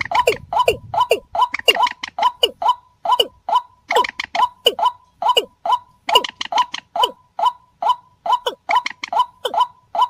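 Lure recording of paddy-field rails calling in a rapid, unbroken series: short notes falling in pitch, about three a second.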